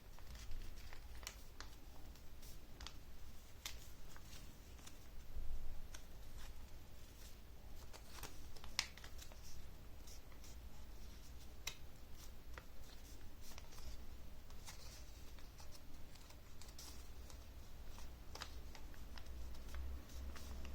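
A sheet of paper being folded and creased by hand: scattered light rustles and sharp creasing clicks at irregular intervals.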